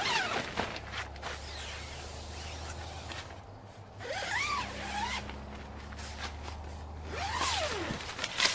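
Tent door zipper being pulled in several long strokes, each a rasp that rises and falls in pitch, with a sharp rustle of tent fabric at the end, over a low steady hum.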